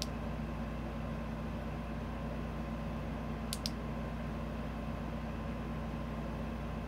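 Steady low background hum with no speech, and a faint double click about three and a half seconds in.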